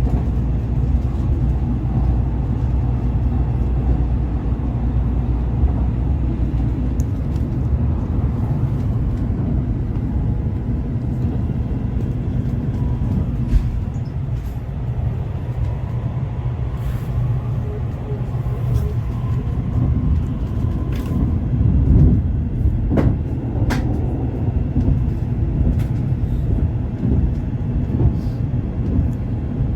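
Steady low rumble of a Shinkansen bullet train running, heard from inside the passenger car, with scattered faint clicks and knocks.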